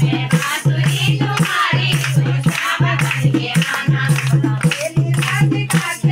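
A group of women singing a Krishna bhajan in kirtan style, with steady rhythmic hand-clapping and a dholak drum keeping a fast beat of about four strokes a second.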